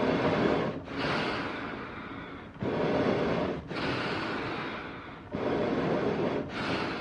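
Eerie animal breathing sound effect: slow, heavy breaths with no voiced tone, about three in-and-out cycles. Each cycle is a short louder breath followed by a longer one that fades away.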